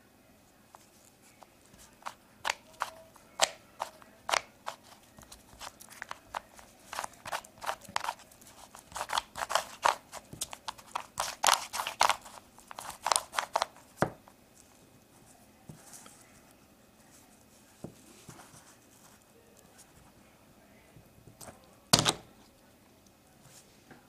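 Plastic layers of a 3x3 Rubik's cube with sanded-down corners and a lubricated core clicking as they are turned. The clicks come quickly, fastest in the middle, then thin out, and one loud sharp snap comes near the end.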